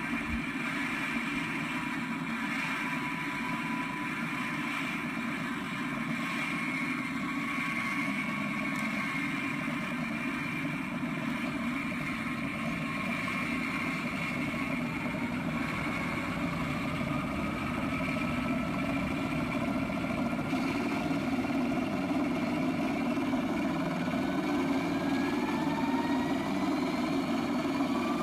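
Scale RC model helicopter on an Align 600-size airframe running: a steady whine over rotor noise. From about twenty seconds in, the whining tones climb steadily in pitch as the rotor speed rises.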